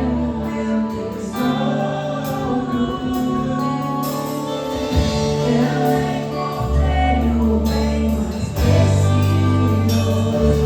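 Live gospel worship song: singing over held chords and bass notes that shift every second or two.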